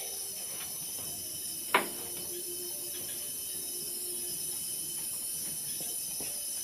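Steady high-pitched drone of night insects. One sharp knock comes a little under two seconds in.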